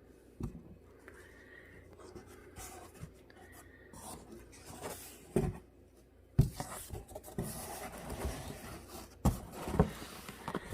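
A cardboard box being opened by hand: its flaps rustling and scraping, with about five sharp knocks spread through.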